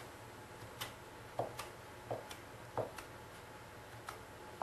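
A flat blade chopping down through ropes of gnocchi dough onto a wooden pastry board, cutting the gnocchi. It makes a series of light, irregular taps, about one or two a second.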